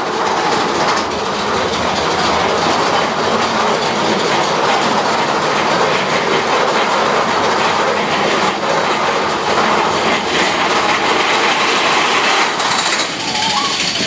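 Big Thunder Mountain Railroad mine-train roller coaster running along its track: the loud, steady noise of the coaster cars and wheels on the rails.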